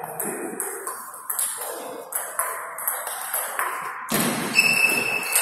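Table tennis rally: the ball clicking off rackets and table in a quick, regular rhythm, about two hits a second. About four seconds in, a louder scuffle with a brief high squeak.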